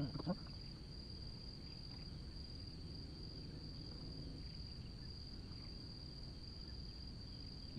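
Insects trilling steadily on one high pitch, over a faint low rumble.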